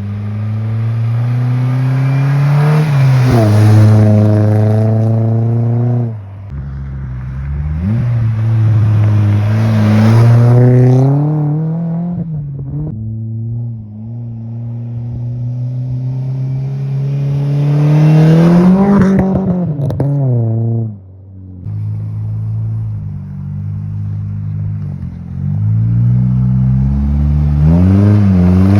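Exhaust note of a 2001 Pontiac Sunfire SE's iron-head four-cylinder engine through a Skunk2 Racing rear muffler, revving up and easing back several times. The pitch climbs and grows louder, holds for a few seconds, then falls away suddenly when the throttle is let off.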